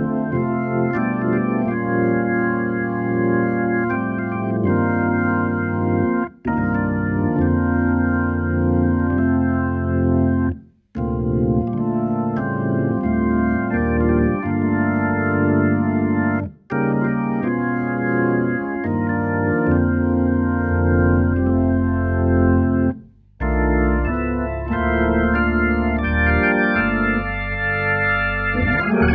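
Hammond RT3 organ played through a Leslie 122 speaker: sustained chords over low bass notes, with four brief breaks in the playing. The organ and Leslie have just been rebuilt and restored.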